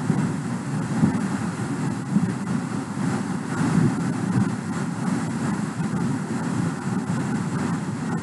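Steady low rushing noise with no distinct events.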